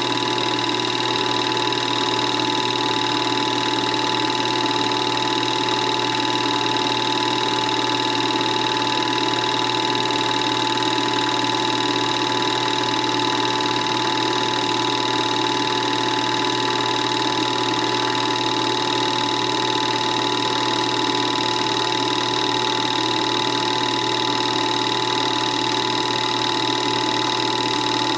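Film projector running: a steady mechanical whir and clatter with a constant whine, unchanging throughout.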